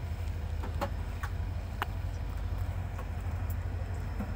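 Low, steady rumble of a Pakistan Railways HGMU30-R diesel-electric locomotive approaching, with a few faint clicks between about one and two seconds in.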